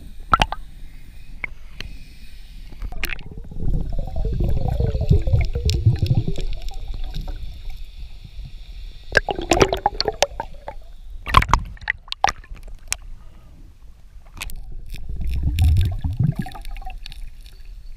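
Water heard underwater through an action camera's housing: muffled gurgling and sloshing that swells twice, with scattered sharp clicks and knocks.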